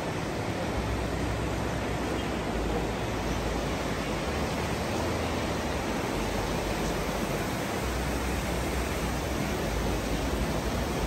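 Fast mountain river rushing over boulders and rapids: a steady, unbroken rush of white water.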